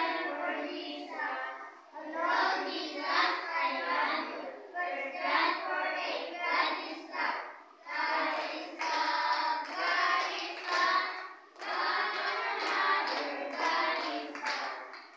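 A group of children singing a song together in phrases with short breaks between them.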